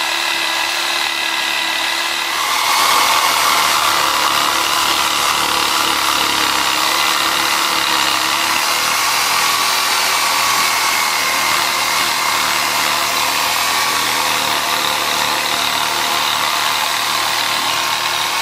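Corded reciprocating saw running continuously, its wood/demolition blade sawing through thick bush roots down in the soil; it gets louder about two and a half seconds in and then holds steady.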